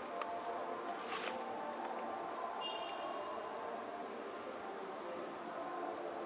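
Steady high-pitched drone of forest insects, with a short rustling burst about a second in.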